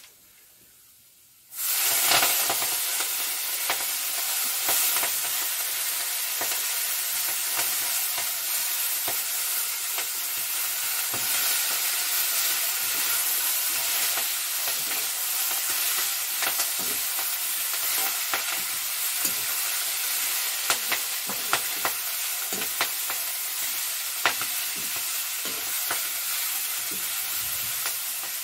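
Dhukur saag greens dropped into hot oil in a steel wok start sizzling all at once about a second and a half in, then keep frying with a steady hiss. A metal spatula stirring and scraping against the wok makes scattered sharp clicks.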